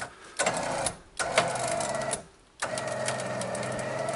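Electric winch motor whining as it pulls the recovery line tight. It runs in two short bursts, then runs steadily from about two and a half seconds in.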